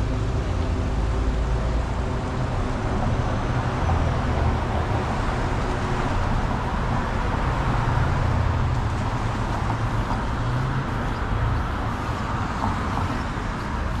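Road traffic on a city street: a steady rumble of vehicles passing and running.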